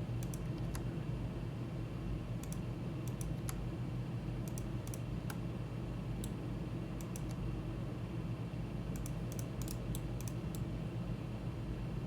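Computer mouse and keyboard clicks, scattered singly and in quick clusters of two or three, over a steady low hum.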